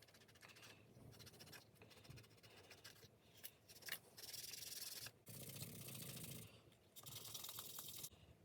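Faint rubbing and scrubbing as small plastic vacuum cleaner parts are cleaned by hand, with three longer, louder scrubbing strokes in the second half.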